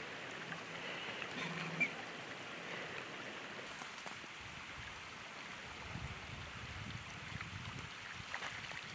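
A person wading through shallow pond water, with quiet sloshing and stirring of the water that grows into irregular low splashy movements in the second half.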